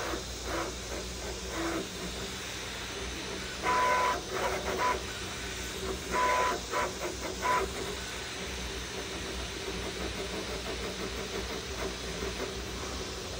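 Creality FDM 3D printer at work: its cooling fans give a steady whir throughout, and the stepper motors whine in two short stop-start spells, about four seconds in and again around six to seven and a half seconds.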